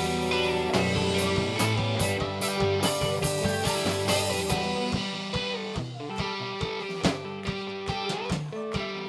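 Live rock band playing: electric guitars, bass guitar and drum kit. A little after halfway the bass and cymbals drop out, leaving a quieter guitar passage with sparse drum hits.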